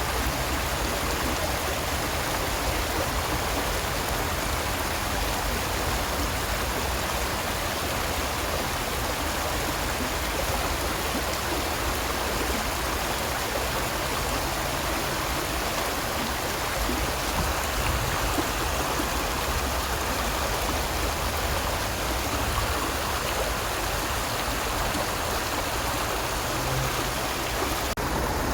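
A stream of water flowing steadily, a constant rushing and burbling.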